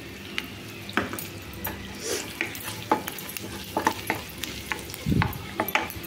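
Chopped garlic sizzling in melted butter in a nonstick kadai, with a wooden spatula stirring and tapping against the pan in quick irregular clicks. A dull knock about five seconds in.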